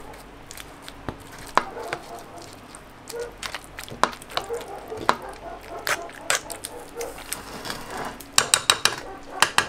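Metal utensil clicking and scraping against a steel frying pan as pasta is stirred through a thick tomato sauce, with a quick run of sharp taps near the end.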